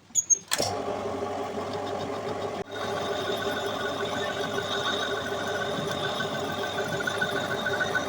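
A few clicks, then a small electric power tool's motor starts and runs steadily with a constant whine while a metal airgun part is trimmed down.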